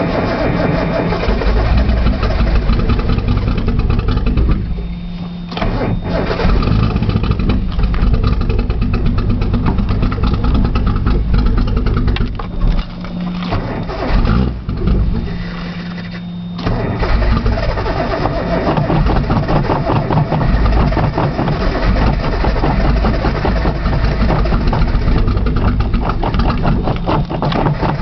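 Datsun 280ZX's inline-six has caught on brake cleaner used as starting fluid and runs loudly and roughly. It sags almost to a stall about five seconds in and twice more around the middle before picking up again. This is a cold no-start engine kept alive on sprayed fluid.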